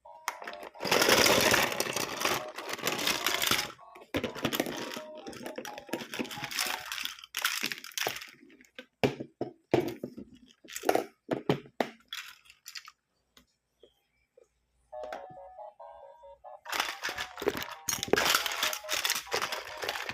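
Plastic packaging of a toy beauty set being handled and opened: bursts of crinkling and rustling, a few seconds each, with sharp clicks and taps. The handling pauses for a couple of seconds past the middle, when a faint melody can be heard.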